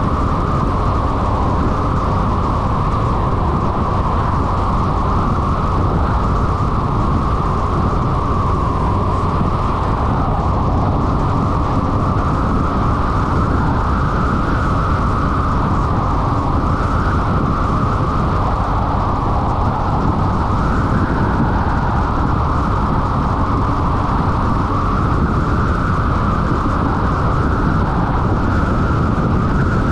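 Honda SH300 scooter riding at a steady road speed: an unbroken rush of wind on the microphone mixed with engine and tyre noise.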